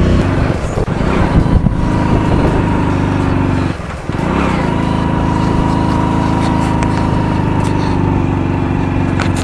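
Hero HF Deluxe motorcycle's 97 cc single-cylinder four-stroke engine running steadily while riding. It dips briefly about four seconds in, then runs evenly again.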